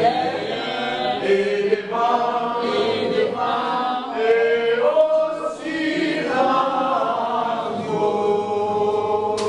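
A group of children singing a song together in unison, holding long notes and moving between them in a simple tune.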